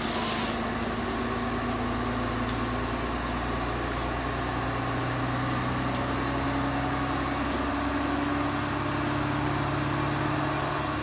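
Diesel engine of a DT1 diesel multiple unit running steadily, its note rising slightly about halfway through.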